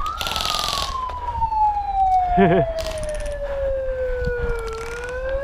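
A siren wailing slowly: its pitch peaks just after the start, slides down over about four seconds, then begins to climb again. Near the start a short, rapid rattling burst sounds over it.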